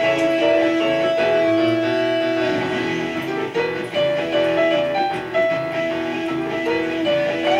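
Recorded music playback: a boogie piano track with guitar parts layered over it.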